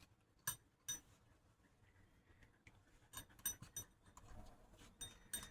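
Light, sharp metallic clinks from a handled kitchen timer, each with a brief high ring. Two come about half a second apart near the start, then an irregular cluster follows from about three seconds in.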